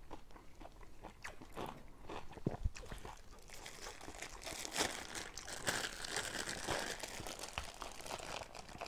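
Chewing and crunching a bite of crispy fried chicken close to the microphone. From about four seconds in, a thin plastic bag of sticky rice crinkles as it is opened and handled.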